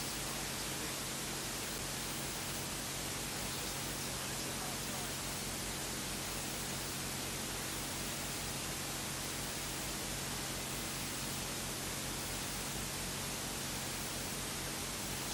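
Steady static hiss at an even level, with a low electrical hum underneath.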